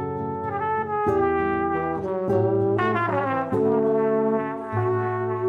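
Instrumental background music of sustained notes and chords that change every half second to a second.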